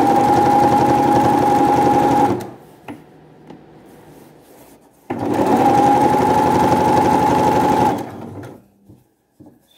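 Domestic electric sewing machine stitching a hem through a folded cotton dish towel: the motor runs at a steady speed with rapid needle ticking for about two seconds, stops, then runs again for about three seconds before slowing to a stop.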